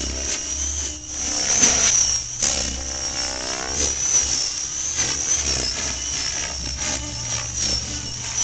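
A 600-size electric RC helicopter in flight: a high, wavering whine from its motor and gears over the low pulsing of its rotor blades, rising and falling in pitch as it manoeuvres.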